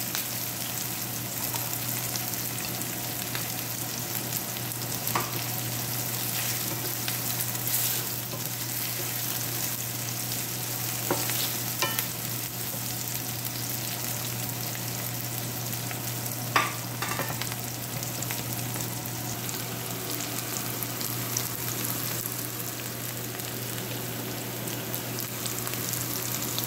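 Chopped onions with cumin seeds sizzling steadily in hot oil in a nonstick frying pan, as they soften in the first stage of the sauté. A wooden spatula stirring them knocks and scrapes against the pan a few times.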